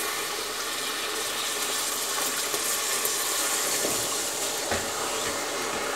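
Water poured from a glass into hot caramelized sugar in a pot, giving a steady hiss and sizzle as it dissolves the caramel.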